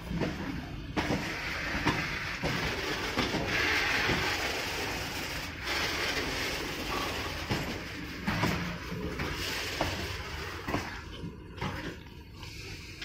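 Loaded BCNA covered goods wagons rolling on the rails: a steady rumble of wheels on track with irregular clanks and knocks every second or two, a little quieter near the end.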